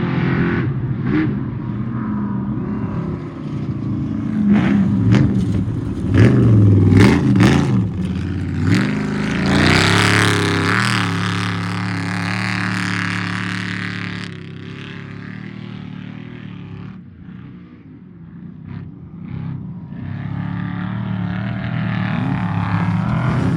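Off-road race vehicle engines revving as they pass, loudest from about six to twelve seconds in, with a few sharp cracks during that pass. The engine sound fades to its lowest a little after halfway, then builds again as another vehicle approaches near the end.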